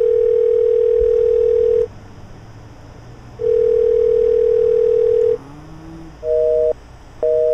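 Telephone ringback tone heard through a phone, two long rings about two seconds each, then a busy signal of short, evenly pulsed beeps starting about six seconds in.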